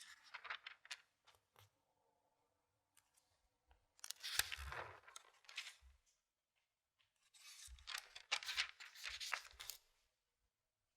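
Book pages being flipped and handled: three bursts of crisp paper rustling and snapping, separated by short pauses.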